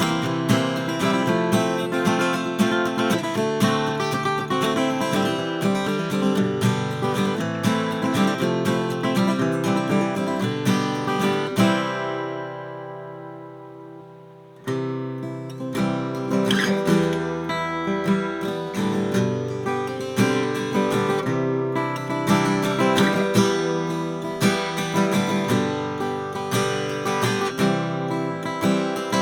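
1959 Gibson LG2 steel-string flat-top acoustic guitar played solo, a steady run of picked and strummed notes and chords. About twelve seconds in, a chord is left ringing and fades away for a couple of seconds, then the playing starts again sharply.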